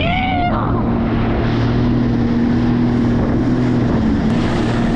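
Jet ski engine running steadily at cruising speed, heard from the rider's seat, holding an even pitch under a continuous hiss of wind and rushing water.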